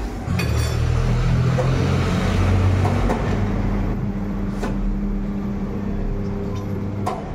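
Tyre-changer machine's motor-driven turntable running with a steady low hum while a motorcycle tyre is worked onto its rim, with scraping and rubbing noise from the bead and the machine.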